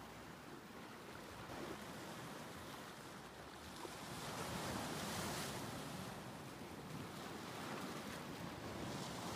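Small waves washing and breaking on open water, with wind; the wash swells for a moment about four to five seconds in.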